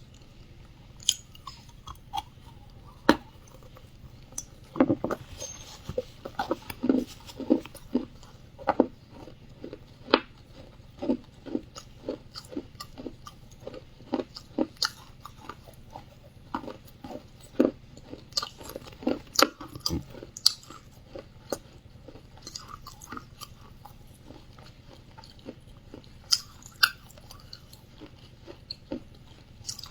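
A person biting and chewing wet clay close to the microphone: irregular sharp crunches, coming thickest between about five and twenty seconds in.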